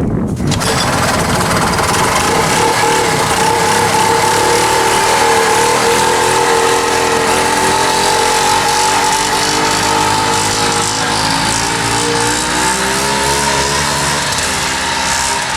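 A 1970 Moto Ski Grand Prix snowmobile's 340cc Sachs single-cylinder two-stroke engine running steadily at a loud, even speed, its pitch rising slightly near the end.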